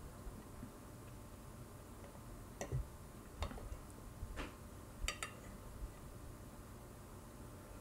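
A metal fork clicking and scraping against a plate, cutting into tamales: about five light clicks in the middle of the stretch over faint room noise.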